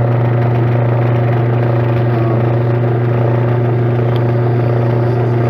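Metal lathe running steadily with an even, low hum, spinning an antique sewing machine handwheel in its chuck.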